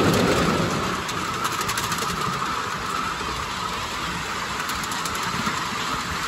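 Steam hissing steadily from a live-steam miniature Pacific locomotive, with a heavier rumble that dies down about a second in.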